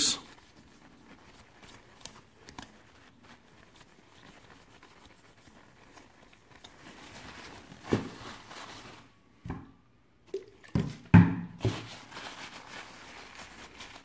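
Paper tissue rubbing and crinkling over the plastic blades of a graphics-card cooling fan as dust is wiped off. It is mostly soft, with a few sharper handling knocks in the second half.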